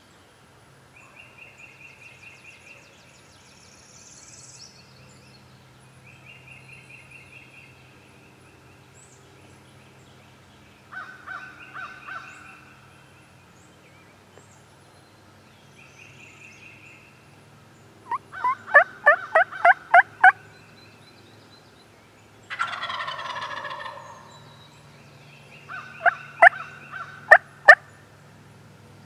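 Wild turkey calls: a loud run of about eight sharp yelps, then a wild turkey gobbler gobbling once in a rattling burst about a second and a half long, then more short yelps near the end. Fainter pulsed bird calls come and go in the first half.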